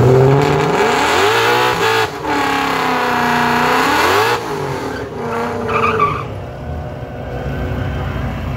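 A drag car doing a burnout at the start line. The engine revs up and holds high for about two seconds over the hiss of spinning tires, then drops, revs briefly again, and settles to a lower, steady note.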